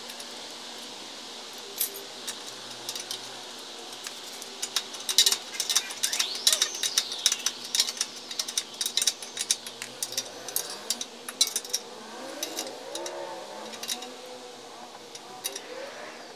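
Wrench working the nut on the outer tie rod end's stud at a BMW E46 steering knuckle: a run of rapid metallic clicks and clinks, densest through the middle, thinning out near the end.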